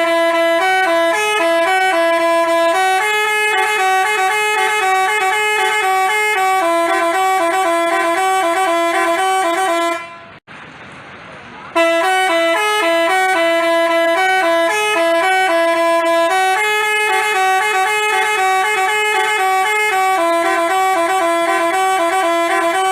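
Basuri telolet multi-tone bus horn playing its tune as a string of stepped, held notes. The tune breaks off about ten seconds in and starts over after a short pause.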